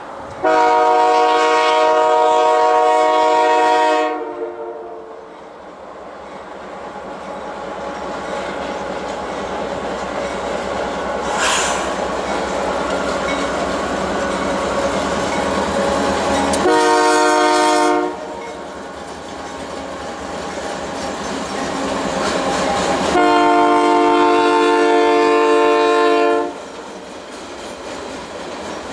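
Freight train's diesel locomotive horn sounding three times: a long blast starting about half a second in, a short one about 17 seconds in, then another long one about 23 seconds in. Between the blasts the locomotives run past, followed by loaded flatcars with steady wheel-on-rail clatter.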